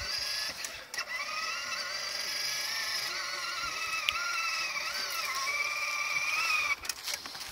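Electric drive motor and gearbox of a battery-powered ride-on toy Lamborghini whining as the car drives along, the pitch wavering with speed and load. The whine stops shortly before the end.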